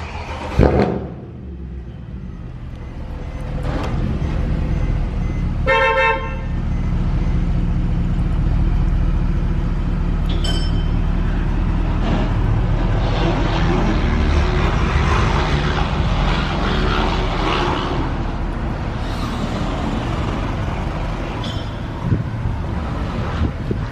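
Steady vehicle and road noise, with one short car-horn toot about six seconds in and a brief high beep a few seconds later.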